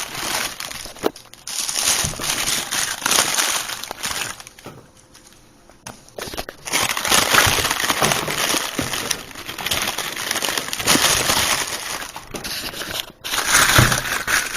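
Packaging being handled and crushed during unpacking, crinkling and rustling in uneven bursts, with a quiet gap of about two seconds near the middle.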